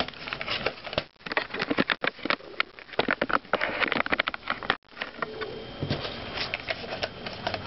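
Packaging of an e-reader's leather case being handled and fiddled with: a dense run of small crackles, crinkles and clicks, broken by a few brief drop-outs.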